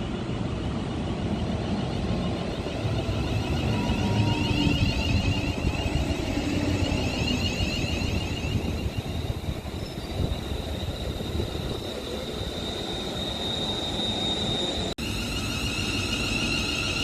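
Electric train passing through on the main line: a steady rumble of wheels on rails with a high-pitched squeal over it. About two seconds before the end it cuts abruptly to a steady high-pitched sound of several tones.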